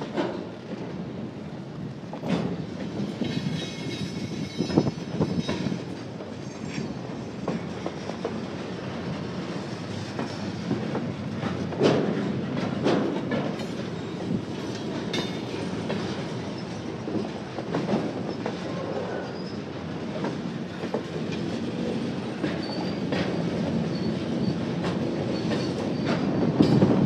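Union Pacific local freight train rolling slowly during switching: steady rumble with wheels clicking and clunking over rail joints, and faint wheel squeal at times.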